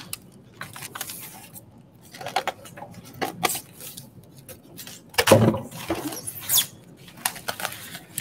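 Styrofoam shipping boxes being shifted and a foam lid pulled off: scattered scrapes and rubs, loudest about five seconds in.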